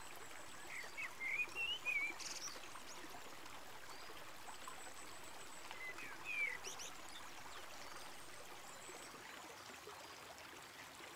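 Steady trickle and splash of running water, with a songbird's short warbling calls twice, about a second in and again about six seconds in.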